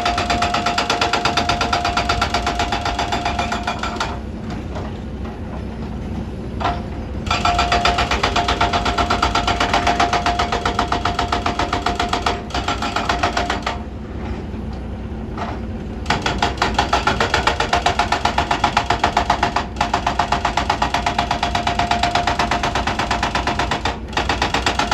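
Excavator's diesel engine running with a fast, even pulse and a steady whine. It eases off twice for a couple of seconds, the whine dropping out, then picks back up.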